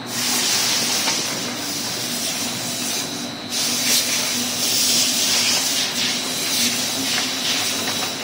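Cardboard V-grooving machine running, a steady loud hissing rush over a low hum as it feeds and grooves greyboard sheets. The hiss sets in abruptly and dips briefly a little after three seconds in.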